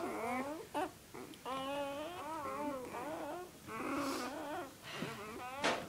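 Newborn Great Pyrenees puppies crying: several drawn-out, wavering squeals one after another. A sharp click comes near the end.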